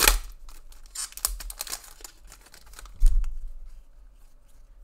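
Trading cards and foil pack wrappers being handled: quick papery clicks and crinkles as cards are flicked through, with a dull knock about three seconds in.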